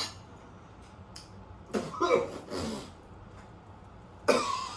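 A person coughing and clearing their throat after swallowing thick puréed beef baby food that sticks in the throat: a strained throaty sound about two seconds in, then a sudden cough near the end.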